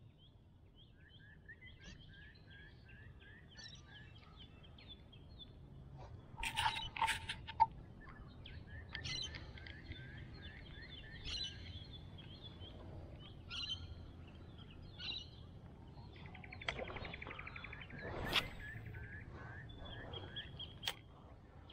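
Birds calling and chirping from the surrounding bush, including a repeated run of short chirps, over a faint low rumble. A few sharp clicks cut in, the loudest about seven seconds in and again about eighteen seconds in.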